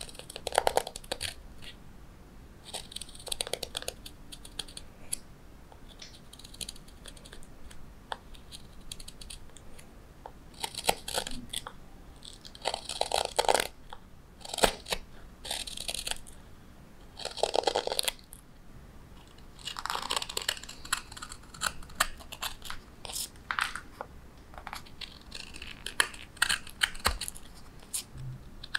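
Steel hook knife cutting out the bowl of a carved wooden spoon: a series of short, uneven cutting strokes, each shaving a curl of wood, with brief pauses between them.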